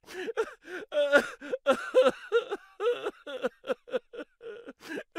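A man's short, repeated moaning cries and gasps, a few each second with the pitch bending up and down, from the burning in his mouth after eating an extremely hot chili chip.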